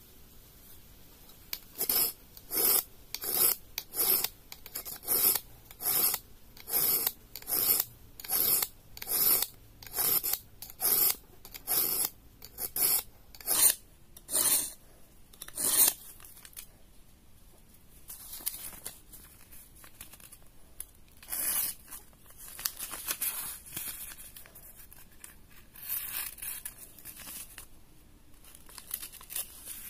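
A knife blade drawn over and over across a sharpener: about seventeen even strokes, a little over one a second, then fainter, irregular strokes for the second half.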